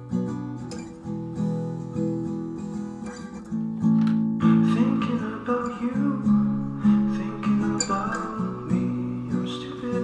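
Background music led by a plucked acoustic guitar, with notes changing in a steady rhythm.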